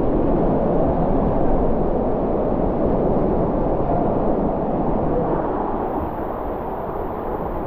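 Water rushing down a water slide as a rider slides through it: a steady, dense rushing noise that eases slightly near the end.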